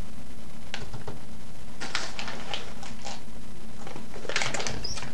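Irregular light taps and clicks, some in small clusters, over a steady low hum.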